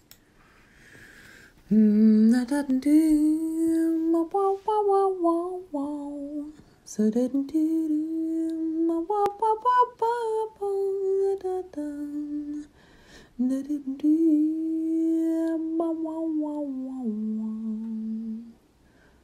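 A woman's voice sings a slow wordless melody, unaccompanied, in three phrases of stepping and long-held notes with short pauses between them.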